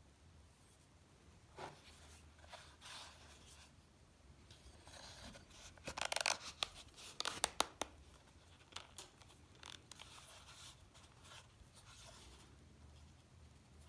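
A knife being worked into a stiff leather sheath: irregular leather rubbing and scraping, with a louder cluster of sharp clicks and scrapes about halfway through as the blade goes in, then lighter handling rustles.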